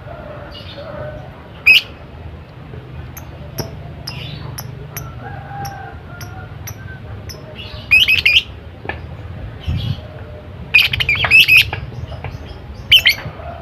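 Lovebird chattering in about five short bursts of rapid, shrill chirps with pauses between them, over a low steady background hum.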